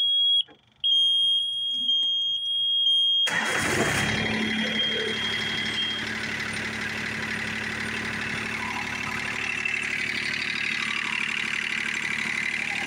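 A John Deere F-935's three-cylinder diesel engine cranks, catches about three seconds in and settles into a steady run, just after an oil change with an empty new filter. A high, steadily pulsing warning buzzer sounds with the key on and stops about three seconds after the engine starts.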